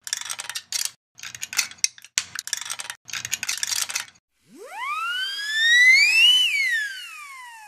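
Edited sound effects: a rapid, irregular run of crisp clicks and snips for about four seconds as the can opens into petals. Then a whistle slides up high and glides back down, fading out.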